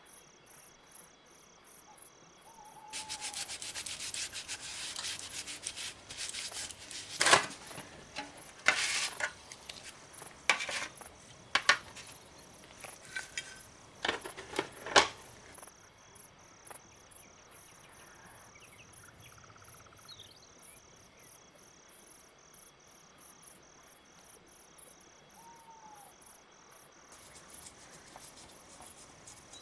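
Gloved hands handle a small toy tank body: rustling with several sharp clicks and knocks from about three seconds in until about sixteen seconds. A steady, rapidly pulsing high chirp runs underneath throughout.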